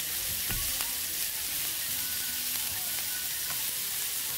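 Raw pork belly slices sizzling steadily in a hot nonstick frying pan, with a few light clicks of metal tongs against the pan.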